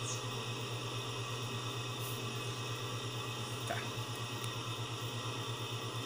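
Steady low hum and hiss, with a few faint light clicks as a ballpoint-pen tube is poked into a desktop PC's rear audio jack to reach a broken headphone-plug tip stuck inside.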